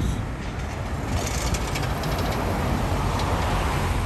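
Siemens S70 streetcar rolling slowly along street-running rails, a steady low rumble with a short run of faint clicks about a second in.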